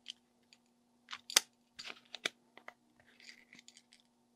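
Small plastic clicks and scrapes from a battery box's snap-on cover being pushed at and not latching, with one sharp click about a second and a half in the loudest.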